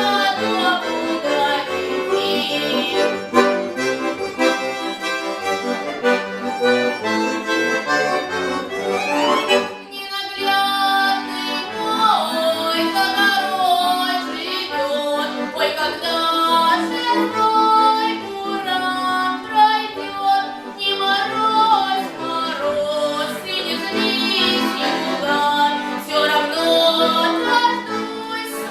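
Accordion playing a Russian folk-style melody with chordal accompaniment, with a quick rising run and a brief pause about ten seconds in before the tune resumes.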